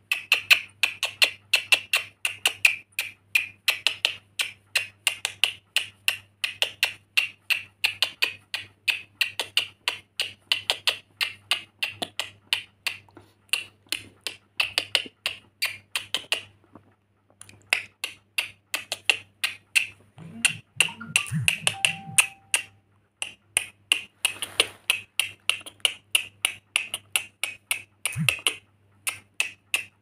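A pet lorikeet making a rapid run of sharp clicks, about four or five a second, pausing for about a second a little past halfway. A few soft low thumps come about two-thirds of the way through.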